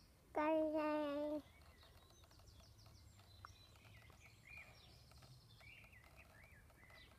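A short held vocal sound from a person, about a second long, near the start. After it come faint, scattered bird chirps over quiet outdoor background noise.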